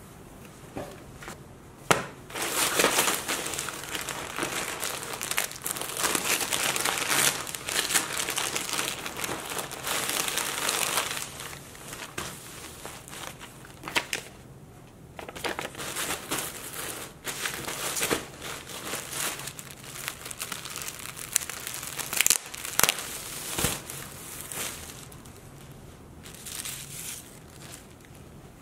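Clear plastic packaging bag crinkling and rustling as it is handled and pulled open, in irregular bursts with a couple of sharp clicks, the loudest about two seconds in.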